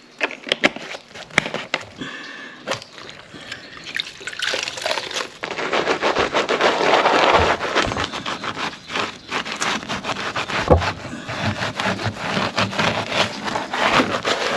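Work on wooden stairs: irregular knocks and clicks, with a louder, steady scraping noise from about four seconds in.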